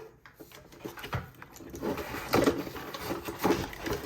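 Hair-styler parts and their packaging being handled: a run of irregular plastic clicks and knocks with some rustling, starting about a second in.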